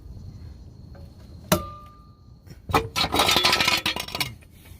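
A single sharp metallic clink with a brief ring about a second and a half in, then a burst of loud, rough noise lasting about a second and a half.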